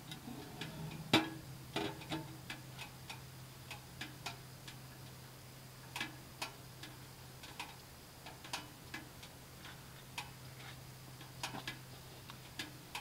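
Small wood stove crackling and popping as a compressed firewood brick catches and burns: irregular sharp clicks, the loudest about a second in, over a faint steady low hum.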